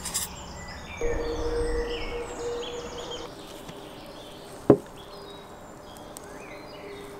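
Small birds chirping repeatedly in short falling notes. A steady hum with a low rumble runs from about a second in to about three seconds, and a single sharp click comes near the middle.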